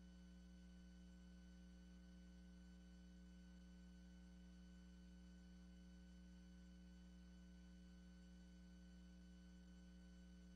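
Near silence: only a faint, unchanging electrical hum.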